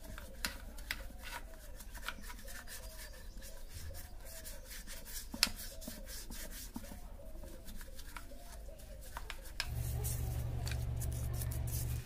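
Hands rubbing and handling motorcycle wheel parts during cleaning, with scattered light clicks. A steady low hum comes in near the end.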